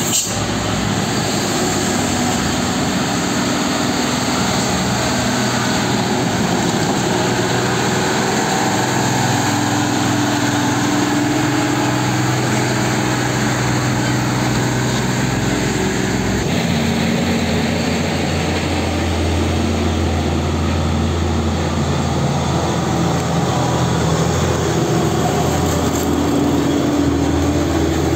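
Heavy diesel trucks hauling semi-trailers running slowly past one after another up a hill, engines working under load, with tyre and road noise. About halfway through, a deeper engine note takes over as the next truck comes alongside.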